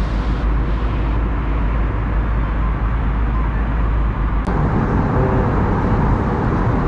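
Steady cabin noise of an airliner in flight, a continuous hum and rush from the engines and airflow. A single click about four and a half seconds in, after which the noise shifts slightly in tone.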